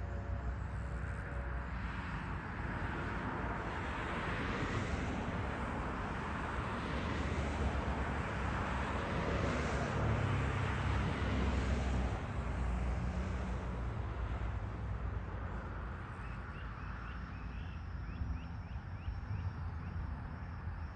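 Cars and SUVs passing on a highway, tyre noise swelling and fading every few seconds, over a low wind rumble on the microphone.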